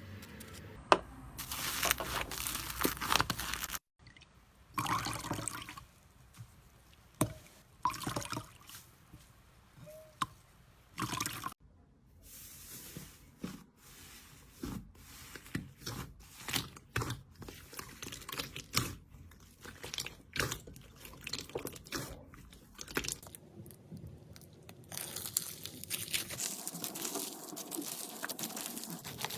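Hands working slime: irregular wet squishing, dripping and crackling sounds in short bursts, breaking off abruptly twice where one clip cuts to the next.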